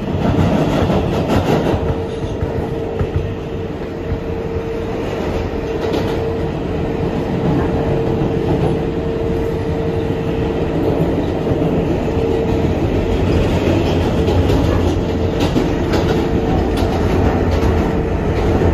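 An R188 subway car on the 7 line running between stations, heard from inside the car: a steady rumble of wheels on rail that grows slightly louder. A steady whine sets in about two seconds in and drops out briefly past the middle.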